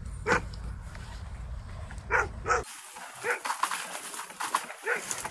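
A dog in icy water yelping, two short cries about two seconds apart, with wind rumbling on the microphone until a cut partway through.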